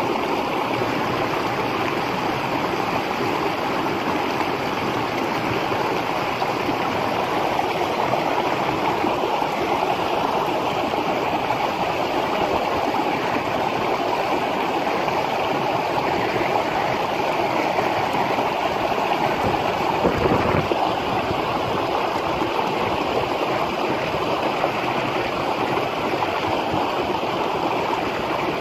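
Shallow mountain stream rushing over rocks and small cascades, a steady even rush of water.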